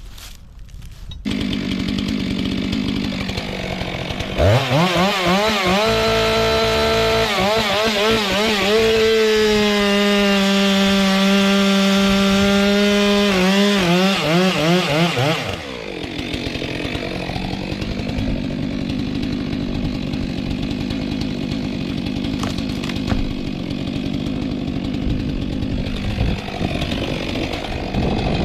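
Two-stroke Stihl chainsaw cutting a frangipani trunk: the engine comes in about a second in, revs up hard after a few seconds with its pitch wavering, holds at full revs for a few seconds, then drops to a lower, rougher level for the second half and climbs again near the end.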